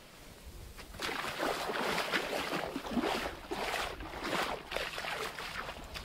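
Small waves washing up onto the sand, with foam fizzing and crackling as the water spreads and drains back. It starts about a second in.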